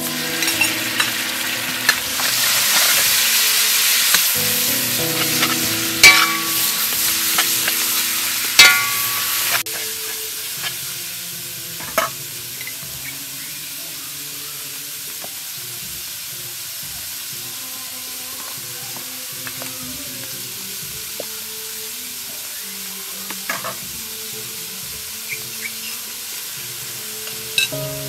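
Loud sizzling as fish sauce is poured into hot oil with chopped garlic in a metal wok, with a spatula clinking against the pan a few times. About ten seconds in the sizzle drops to a quieter, steady frying of ground pork with occasional scrapes.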